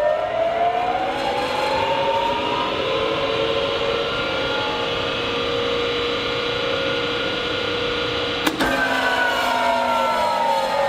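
Three-phase induction motor whining as it finishes spinning up, then running at a steady pitch. About eight and a half seconds in, a contactor clacks and the whine starts falling in pitch as the motor is plug-braked by being switched into reverse.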